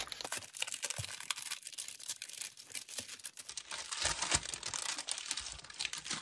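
Thin white paper wrapping being peeled open and unfolded by hand: a continuous crinkling and rustling with small tearing sounds, louder about four seconds in.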